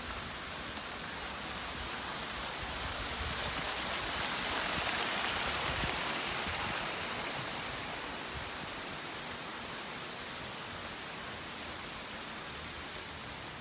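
Steady rush of falling water from waterfalls beside the path, swelling louder about four to six seconds in and then fading.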